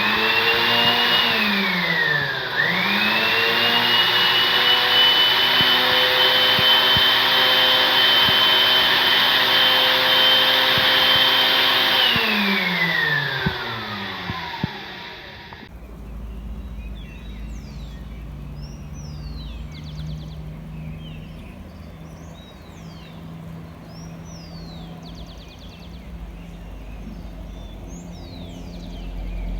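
A household appliance's electric motor runs with a high whine. About two seconds in its pitch dips and recovers, then it holds steady and winds down after about twelve seconds. After a sudden cut, birds chirp over a low outdoor rumble.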